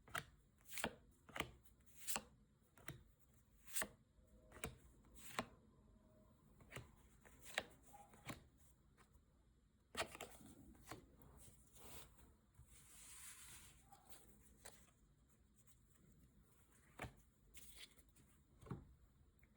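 Trading cards and packaging being handled: a run of sharp light taps about twice a second, then rustling with a brief hiss about two-thirds of the way in, and a few more taps near the end.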